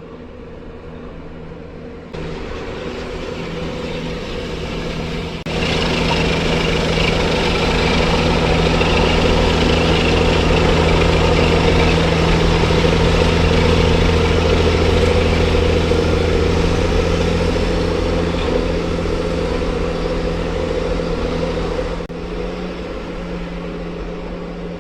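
An engine running steadily with a constant hum, getting louder in sudden steps about two and five seconds in, then dropping back near the end.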